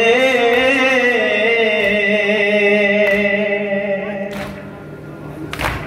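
A chanting voice, amplified, holds one long, slightly wavering note that breaks off about four seconds in, followed by two sharp slaps.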